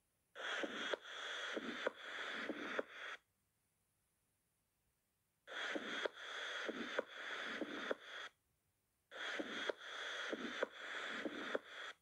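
Recorded prosthetic heart valve sounds: sharp clicks in a regular heartbeat rhythm over a background hiss. The recording plays three times, with short silences between.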